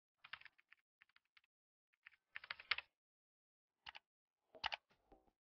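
Faint computer keyboard typing sound effect: a quick run of key clicks for about three seconds, then two more clicks after a short pause.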